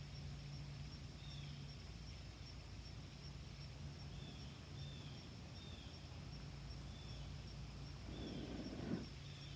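Faint outdoor ambience: a small bird gives short, high, falling chirps every second or so over a low steady hum, with a soft rush of noise near the end.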